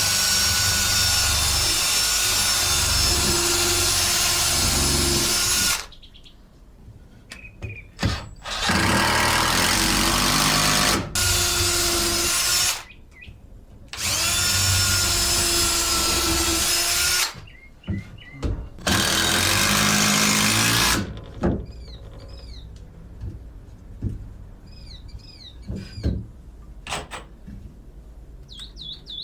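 Power drill running in five bursts of a few seconds each, driving screws to fasten a piece of OSB in place. Birds chirp faintly in the quieter last part.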